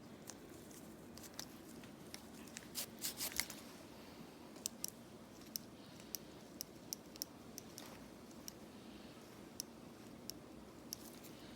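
Small sharp snips and clicks, irregularly spaced, of a metal pedicure tool cutting away thick dry skin on a foot, with a louder run of snips about three seconds in.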